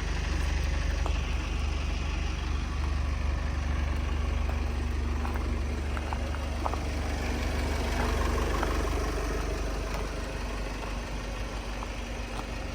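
A vehicle engine idling with a steady low rumble, and a few faint clicks midway.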